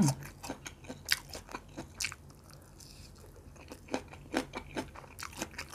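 Close-miked chewing of a bite of grilled pork barbecue skewer: irregular wet mouth clicks and small crunches, a few a second, with louder ones about one and two seconds in.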